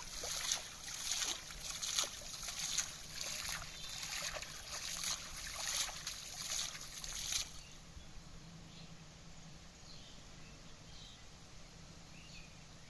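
Water splashing and sloshing in repeated surges, roughly one or two a second, which stop abruptly about seven and a half seconds in. Quieter outdoor background with faint bird or insect chirps follows.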